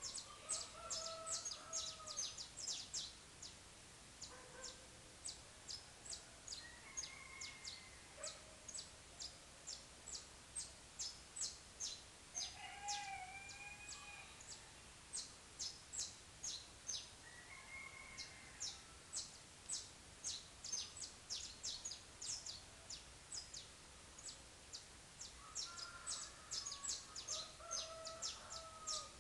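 Saffron finch (canário-da-terra) singing: a long, unbroken string of short, high chips at about two a second. A few lower, drawn-out calls from other birds sound now and then behind it.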